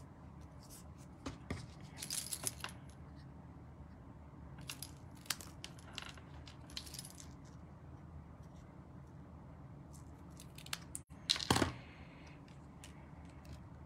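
Scattered small clicks and brief rustles of paper and small tools being handled, with a few quick scissor snips trimming a thin paper sentiment strip. The loudest rustle comes near the end.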